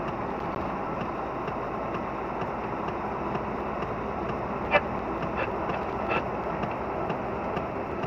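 Volvo FH16 700 truck driving down the road: steady engine and tyre noise, with one sharp click about halfway through and two fainter clicks soon after.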